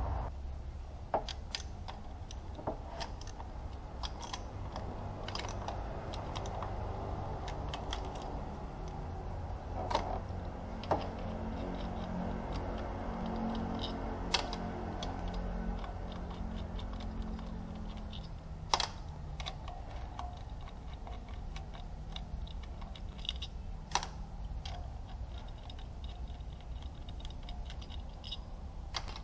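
Scattered sharp clicks and knocks of hand tools and parts being handled on the top of a car engine, at irregular intervals over a steady low hum. The strongest knocks come about nineteen and twenty-four seconds in.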